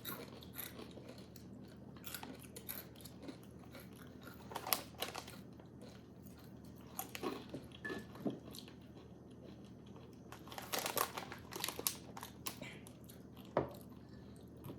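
Someone biting into and chewing crunchy fried chicken skin chips: irregular crisp crunches and mouth noises, with louder clusters of crunching about a third of the way in and again near the end.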